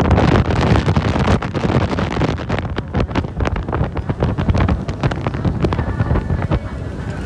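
Heavy wind buffeting the microphone on the deck of a boat under way, a loud, gusty rumble with irregular hard gusts.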